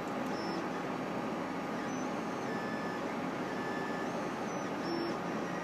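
Solidoodle 3 3D printer at work: its stepper motors whine in short steady tones that jump from pitch to pitch as the print head moves, over a steady hiss.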